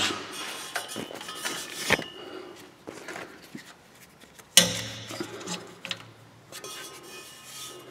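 Light metallic clinks and rubbing from hands working at an exhaust O2 sensor on a pickup's exhaust pipe, checking it for looseness, with a sharper knock a little past halfway.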